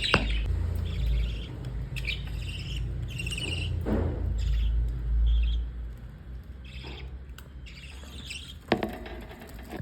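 Flock of budgerigars chirping and chattering in many short bursts. Under the first half there is a low rumble, and two sharp clicks stand out, one at the very start and one near the end.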